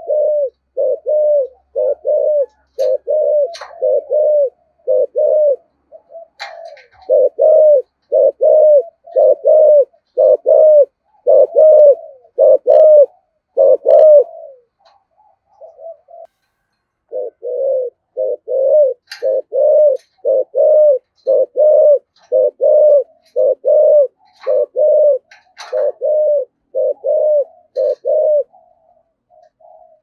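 Spotted dove giving its rapid, repeated 'gù' cooing, the deep-voiced 'giọng thổ' type prized by keepers, about one and a half coos a second in two long runs broken by a pause of a couple of seconds near the middle. Faint chirps of small birds come in now and then.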